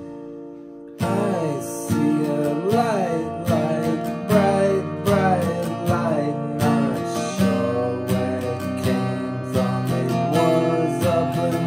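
Acoustic guitar strummed in a steady rhythm, starting about a second in.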